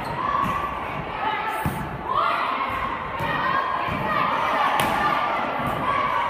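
Volleyball rally on an indoor court: the ball struck with a few sharp thuds while players and spectators shout and cheer.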